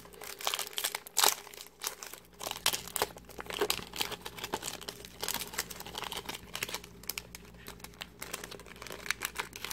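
Foil Pokémon trading-card booster pack wrapper being torn open and crinkled in the hands: a dense, irregular run of sharp crackles and rustles.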